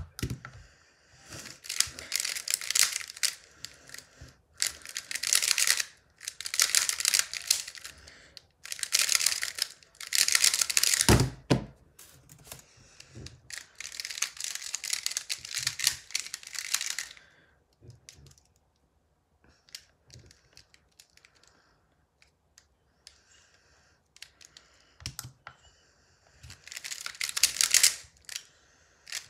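Square-1 puzzle being turned rapidly in the hands: bursts of fast plastic clicking and clacking as its layers turn and slash, with a quieter, sparser stretch about two thirds of the way through. A single heavier thump about eleven seconds in.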